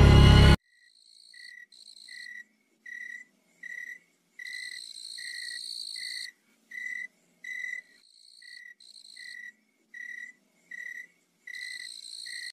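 Loud music cuts off suddenly just after the start, leaving crickets chirping: short high chirps repeating about every half second to a second, with two longer trills, one in the middle and one near the end.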